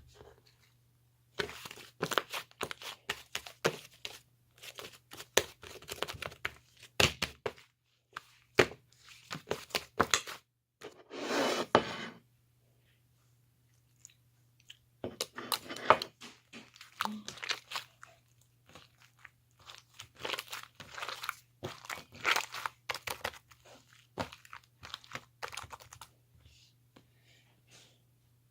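Slime being worked by hand, giving irregular bursts of sharp clicks and crackles, with a longer rustle around eleven seconds in and a pause of about two seconds soon after. A faint steady low hum runs underneath.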